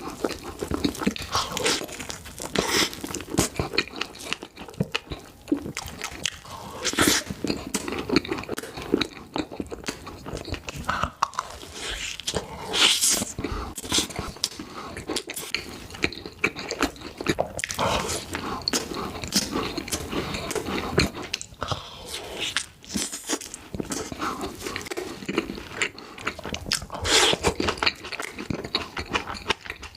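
Close-miked eating: a person taking crunchy bites and chewing, with many irregular crunches one after another.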